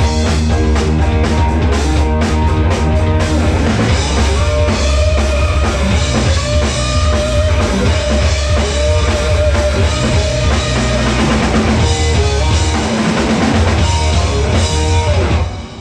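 Live rock band playing loudly with drum kit and electric guitar, a long note held through the middle of the passage; the song ends abruptly just before the close.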